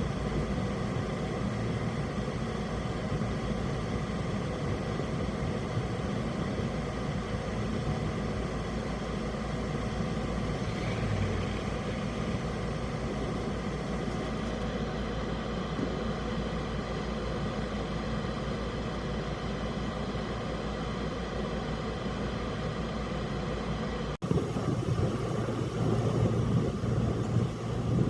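Steady car engine and road hum. About 24 seconds in, the sound cuts and comes back louder and more uneven.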